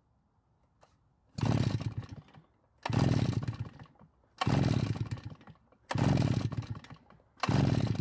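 RedMax EBZ8500 backpack blower's two-stroke engine cranked by its recoil starter: five pulls about a second and a half apart, each starting sharply and dying away within about a second. The engine never fires, not even with a known-good spark plug fitted: a no-start, with the spark found weak.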